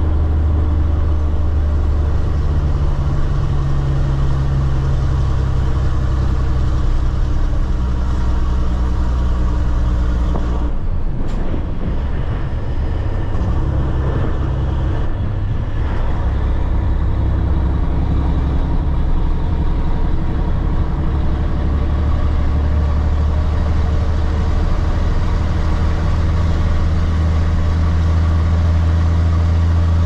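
Caterpillar 3406B inline-six turbo diesel of a cabover semi running steadily under load, heard from inside the cab. The engine note breaks off and changes pitch briefly twice, about eleven and fifteen seconds in, with the gear changes.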